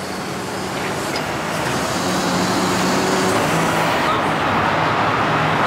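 Steady road traffic noise with a low engine hum from vehicles running.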